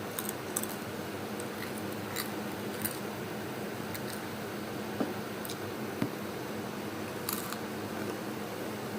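Crisp chips being bitten and chewed close to the microphone: scattered short, sharp crunches every second or so over a steady low background hum.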